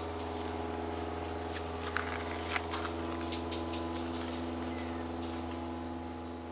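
Rainforest insects, crickets or similar, keeping up a steady high-pitched trill, with a few short clicks about two to four seconds in.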